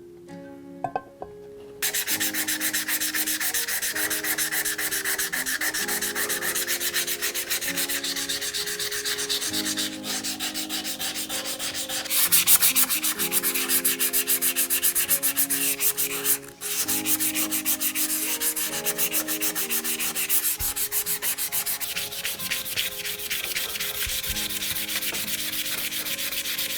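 Rapid, rhythmic abrasive rubbing of the hand plane's metal parts during rust removal, starting about two seconds in, breaking off briefly twice and louder in the middle.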